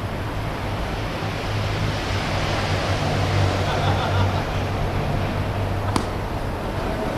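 Steady outdoor background noise, a broad hiss over a low rumble, with a single sharp click about six seconds in.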